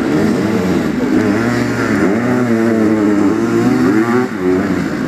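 Racing sidecar motocross outfits' engines revving hard, several at once, their pitch repeatedly rising and falling with the throttle.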